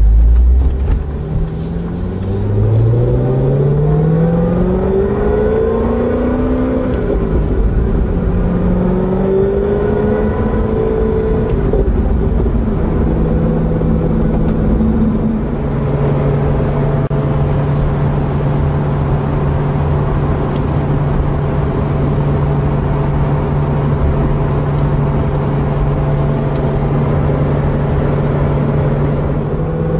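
Corvette ZR1's supercharged LS9 V8 through a Corsa Sport exhaust, heard from inside the cabin. It pulls away, rising in pitch through a few gear changes, then from about halfway holds a steady low tone at a 70 mph highway cruise, with no exhaust drone.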